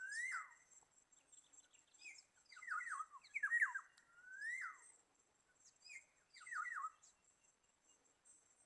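Black-naped oriole (kepodang) calling in short phrases of clear whistles, about four times. Each phrase is a single rising whistle or a quick run of falling notes.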